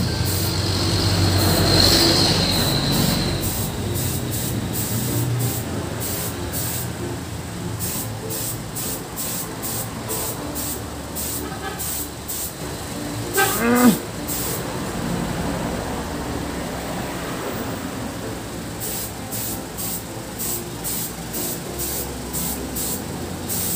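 Compressed-air paint spray gun hissing in many short bursts as paint is sprayed onto motorcycle parts, over a low hum. A short rising squeak sounds once about fourteen seconds in.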